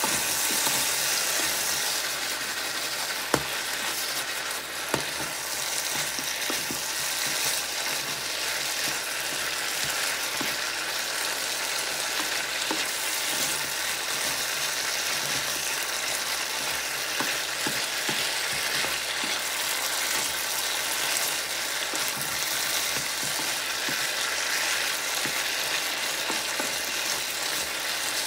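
Broccoli, cauliflower and beef sizzling steadily in a hot wok while being stirred, with a wooden spatula scraping and tapping against the pan and two sharper knocks about three and five seconds in.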